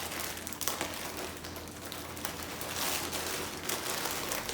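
Plastic packaging crinkling and rustling as a parcel is opened by hand: a continuous run of small crackles.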